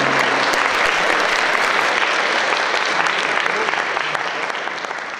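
Audience applause, many hands clapping at once, after a live song; the last note of the music dies away about half a second in, and the applause fades out toward the end.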